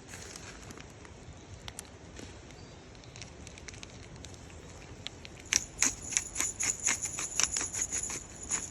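Cooking over a charcoal fire, sizzling and crackling: a faint hiss with scattered pops, turning to a dense run of sharp, irregular crackles about five and a half seconds in.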